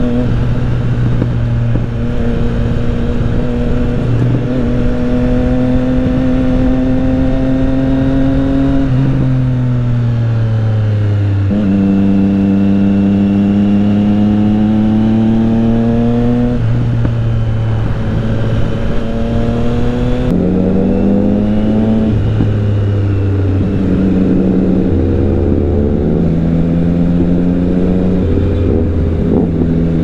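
Motorcycle engine under way, its pitch slowly climbing and then stepping down or up with each gear change, with a long falling slide as the bike slows about ten seconds in. Several quick gear changes follow near the end. Wind and road noise rush steadily underneath.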